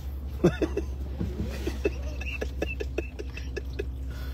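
Steady low hum in a truck cab, with a short vocal sound about half a second in, then a quick run of small clicks and taps lasting about a second and a half.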